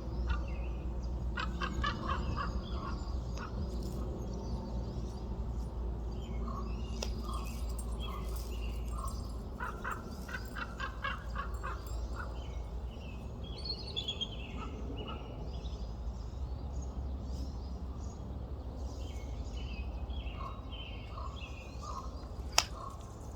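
Wild birds calling in bursts of rapid, repeated notes several times, with smaller chirps in between, over a steady low rumble; a single sharp click sounds near the end.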